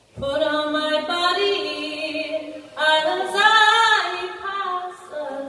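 A woman singing a slow folk ballad in long held notes with vibrato. It begins with a low thump after a brief hush, and the loudest, highest note comes about three seconds in before it eases off.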